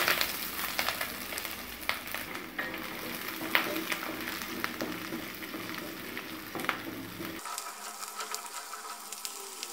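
Shallots, dried red chillies, curry leaves and garlic sizzling in hot sesame oil in a stainless steel kadai, with a wooden spatula stirring and scraping against the pan in scattered clicks.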